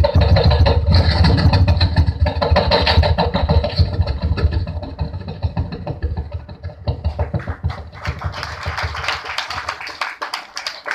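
A man imitating a passing train with his voice, amplified through a microphone: a loud low rumble with fast chugging that grows steadily fainter as the imagined train goes away, thinning about two-thirds of the way in to a hissing chuff that fades out near the end.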